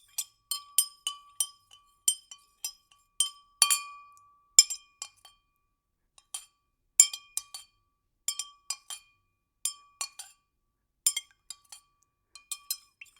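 A spoon stirring liquid in a drinking glass, clinking against the glass in quick, irregular runs. Each clink rings briefly at the glass's own pitch, and the stirring pauses for about a second midway.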